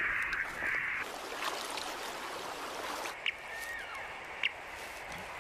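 Radio-tracking receiver hissing with static, which cuts out about a second in. From about three seconds in, it gives short beeps roughly a second apart: the pulses of a platypus's radio transmitter being picked up.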